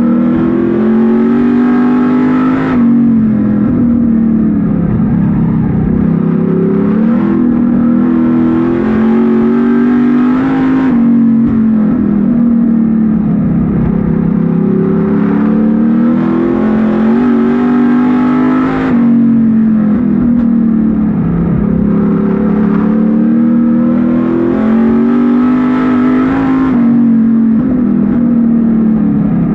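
Street stock race car's engine at racing speed, heard from inside the cockpit. Its pitch climbs under throttle and then falls away as the driver lifts, in a cycle of about eight seconds.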